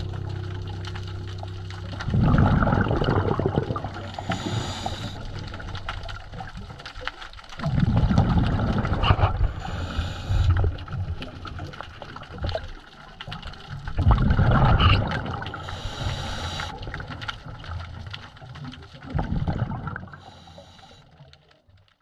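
Scuba regulator breathing heard underwater: a short hiss on each inhale and a loud surge of bubbling exhaust about every five to six seconds, four exhales in all, fading out at the end.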